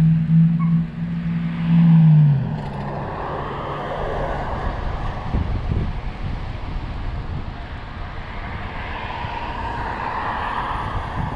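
A motor vehicle going by: its steady hum drops in pitch and fades about two seconds in. After that comes a steady rush of road and wind noise, with another vehicle's tyre noise swelling near the end.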